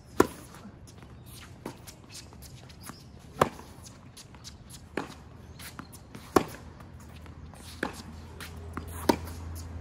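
Tennis rally on a hard court: sharp racket strikes on the ball about every three seconds, with fainter hits and bounces from the far end in between, and light shuffling footsteps.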